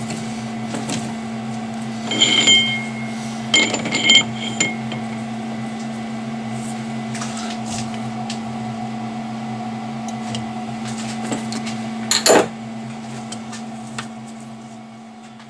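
Metal lathe running with a steady motor hum, with several sharp metallic clinks about two to five seconds in and a louder knock about twelve seconds in. The sound fades away near the end.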